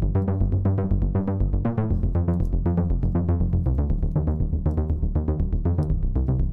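Electronic background music with a steady beat and quick repeated synth notes.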